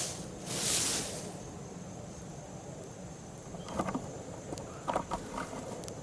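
A person blowing on a smouldering coal in a tinder bundle of birch bark and punky wood shavings to bring it to flame: two breaths at the start, each under a second. A few faint, short crackles follow about four and five seconds in.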